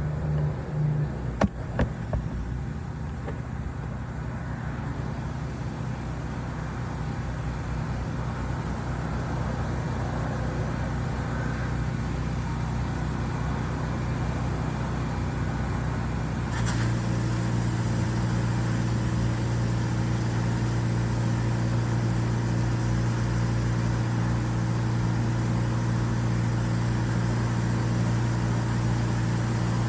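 Gas engine of a pressure-washing rig running steadily at constant speed. About two-thirds of the way through, its tone shifts and it becomes slightly louder.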